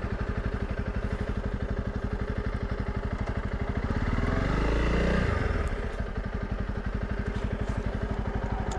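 Honda CRF300 Rally's single-cylinder engine idling steadily at a standstill, its note swelling briefly about four seconds in before settling back to idle.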